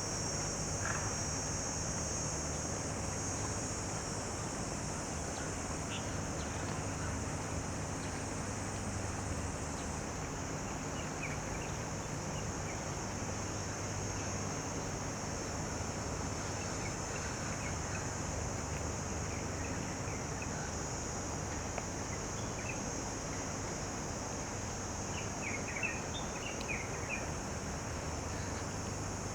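Steady high-pitched drone of insects, typical of a summer cicada chorus, over a low steady hum. A few short bird chirps come near the end.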